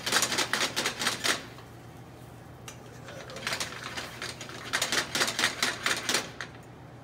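A fork stirring eggs fast in a nonstick omelette pan makes rapid clicking and scraping, several strokes a second. It lasts about a second, pauses, then runs again for about three seconds.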